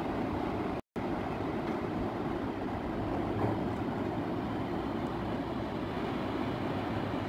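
Steady rushing roar of a river's white water heard from high above the gorge, with the sound cutting out completely for a moment about a second in.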